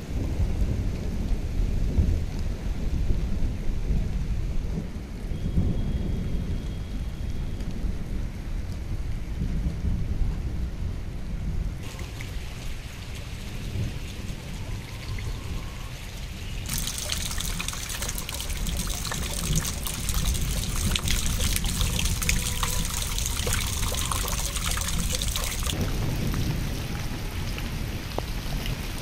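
Steady rain falling in a thunderstorm, with a low rumble of thunder that is heaviest in the first few seconds. About halfway through, the rain's patter turns louder and crisper for several seconds, then settles again.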